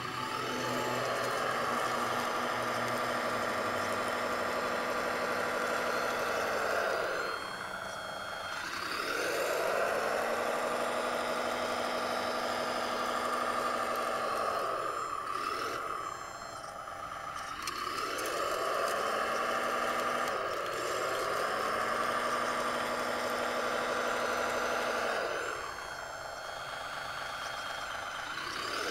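Motor whine of a radio-controlled model CAT 963B track loader, pitched and steady while it works, rising as the motors spin up and falling as they stop, about four times over.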